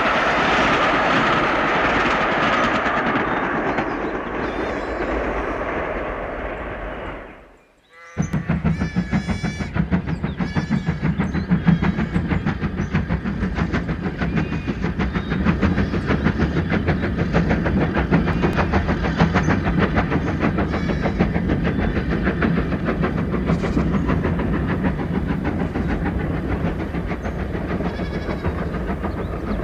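Added train sound effect: a train running on rails, fading out after about seven seconds. It cuts abruptly to a steady, rapid clickety-clack of wheels over rail joints.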